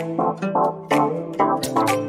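Background music: a melody of quick notes, each starting sharply, about four or five to the second.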